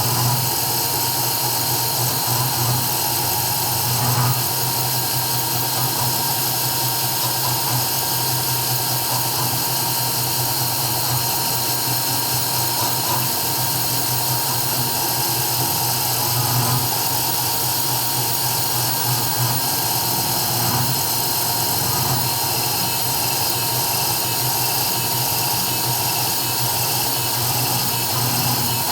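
CNC 3040 desktop engraving machine running steadily while engraving, its spindle giving a constant high whine over a low hum and cutting noise.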